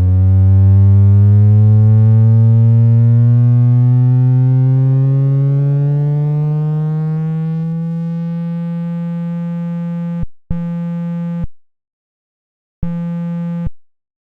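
Synthesized low buzz from an FL Studio 3x OSC synth, imitating a phone on vibrate. It rises slowly in pitch for about ten seconds, then comes as two separate short buzzes of about a second each.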